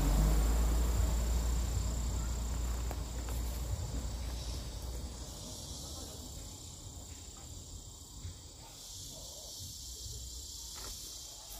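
Insects chirring as a steady, high, thin trill. A low rumble is loudest at the start and fades away over the first half.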